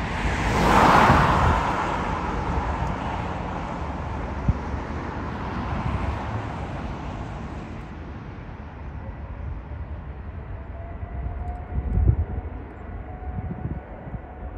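Jet airliner on final approach passing close by: a roar of engine noise that is loudest about a second in, then fades to a steady rush. Wind buffets the microphone with low thumps, and near the end the faint engine whine of the next arriving jet comes in.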